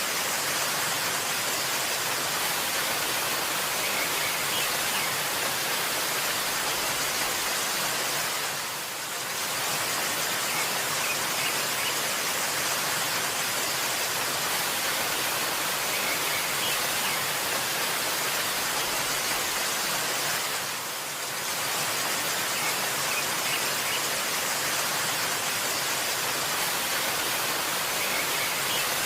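Steady, even rush of a waterfall, with faint occasional bird chirps over it; the level dips briefly twice.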